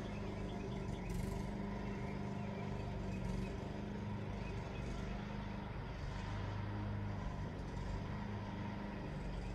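Steady low hum of a running motor, even in pitch, with a slight swell in its lowest tone about six seconds in.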